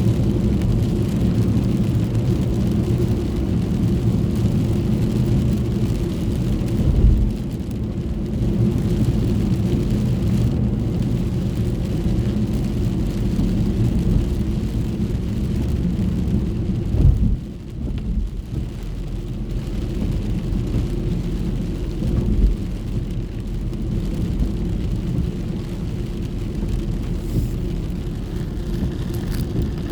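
Steady low road and engine drone inside a moving car's cabin, with rain on the car, and three short low thumps along the way.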